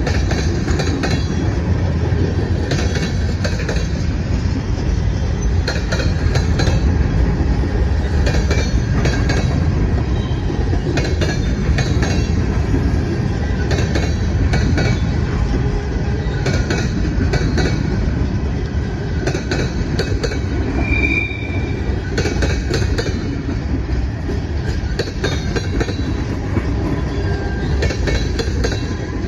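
Freight cars rolling past: a steady low rumble of steel wheels on rail, with repeated clicks as the wheels cross rail joints. A brief high wheel squeal sounds about two-thirds of the way through.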